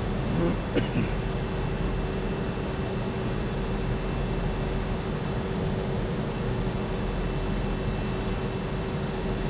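CNC drilling machine running steadily as it drills the four badge holes into a solid oak drum shell, a steady hum with a constant tone and a short click a little under a second in.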